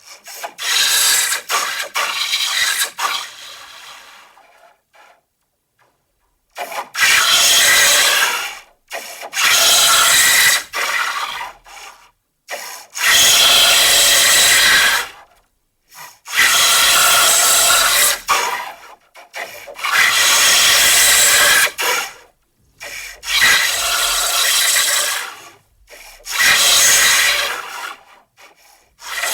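An 8-month-old baby crying, heavily vocoded into a horror effect: cries in long bursts of about two seconds, separated by short pauses, with a brief silence about five seconds in.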